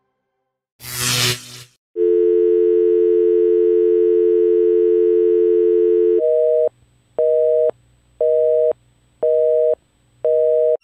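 Telephone dial tone, a steady two-note hum for about four seconds, that changes to a busy signal: five evenly paced beeps, about one a second, on a higher pair of notes. A brief rustling noise comes just before the dial tone.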